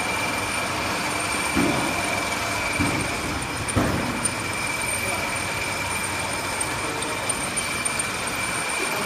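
Shrink sleeve labeling machine running, a steady mechanical hum with a thin high whine, and a few short knocks in the first four seconds.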